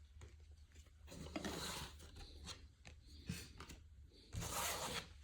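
Baseball trading cards being handled and shuffled through by hand: short papery rustles and slides with light clicks, the loudest rustle near the end.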